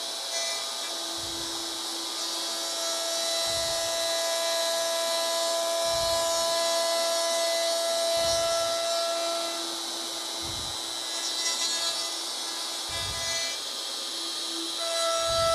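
DeWalt router running steadily with a constant whine, its bit cutting wood as the J-slot of a wooden yarn bowl is routed in a jig. A low thud recurs about every two seconds.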